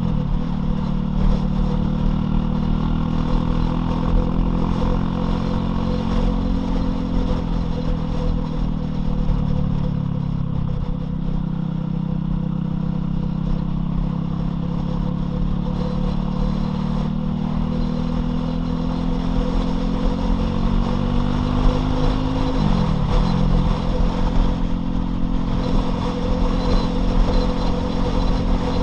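Loncin LX250-12C motorcycle engine running while riding, its pitch climbing slowly as it pulls and dropping at gear changes, once about ten seconds in and more sharply a little after twenty seconds.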